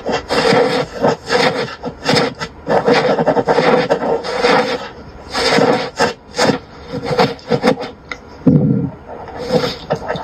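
Rough rubbing or rasping strokes repeating irregularly about once or twice a second, with a few sharp ticks between them.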